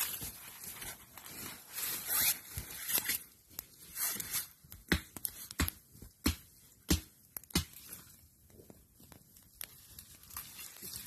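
Wood campfire crackling and hissing, with a run of about five sharp snaps at an even pace in the middle.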